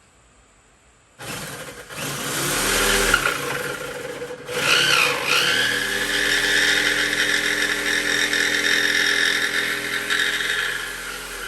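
Handheld electric power tool cutting wood: it starts about a second in, its motor whine rises over the next few seconds, then runs steady under load and begins to wind down near the end.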